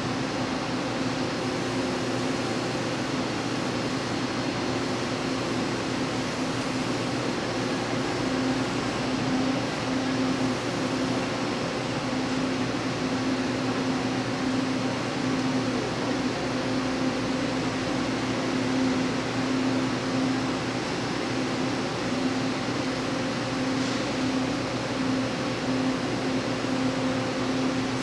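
Steady whirring of a stationary Taiwan Railways E1000 Tzu-Chiang push-pull train's air-conditioning and auxiliary equipment, with a low hum that pulses slightly.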